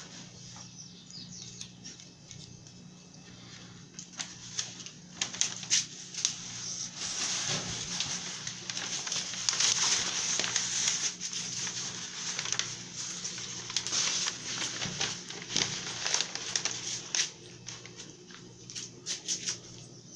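Plastic contact paper crackling and rustling as it is pressed over the edge of a glass tabletop and trimmed with a kitchen knife, in irregular crinkles and scratches that are busiest from about seven to eleven seconds in.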